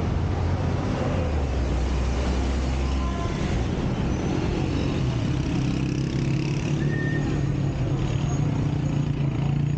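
Busy street traffic: motorcycles and cars running past close by, with a steady low engine hum.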